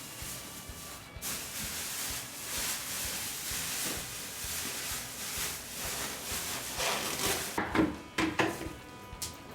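A rough rustling hiss of cleaning work on an air conditioner runs for several seconds, then several sharp clattering knocks come near the end.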